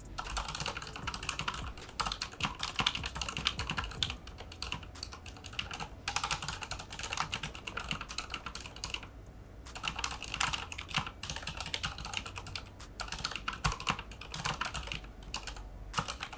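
Typing test on a tenkeyless mechanical keyboard with Cherry MX Red linear switches and ABS keycaps: a rapid, steady clatter of keystrokes in runs of a few seconds, with brief pauses, the longest about nine seconds in.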